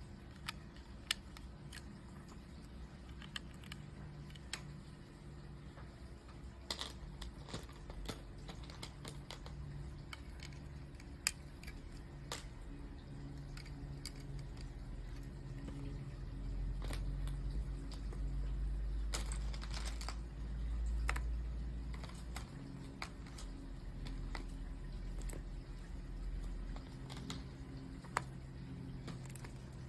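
Lego plastic bricks being handled and pressed together by hand: scattered sharp clicks and snaps, with a short spell of rummaging through loose pieces a little past the middle, over a low hum.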